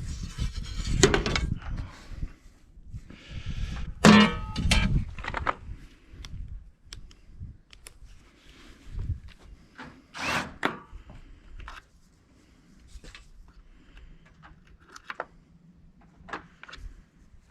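Irregular knocks and clanks of metal parts being handled and struck while an air conditioner unit is taken apart for scrap. There is a loud ringing clang about four seconds in and another strong knock about ten seconds in, with light clicks in between.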